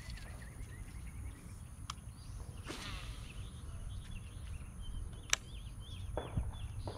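Small birds chirping in quick runs of short notes over a steady low outdoor rumble, with a single sharp click a little after five seconds.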